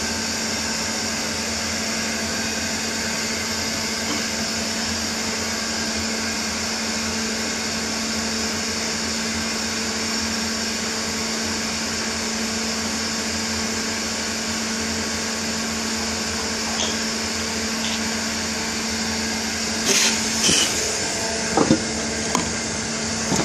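Dahlih horizontal CNC machining centre running a thread-milling cut: a steady hum with a constant tone over a hiss. A few sharp clicks and knocks come about twenty seconds in.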